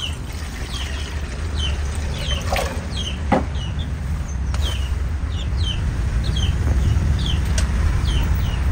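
Water poured from a plastic bottle into a cooking pot, a steady splashing over a low rumble, while a bird chirps about two to three times a second.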